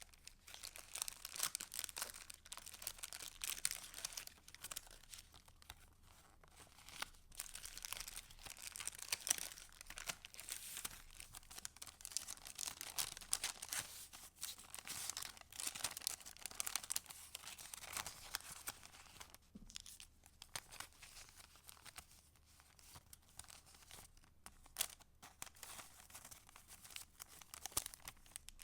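Paper of a handmade junk journal being handled and leafed through: a steady rustling and crinkling with many small sharp crackles, quieter for a few seconds about two-thirds of the way in.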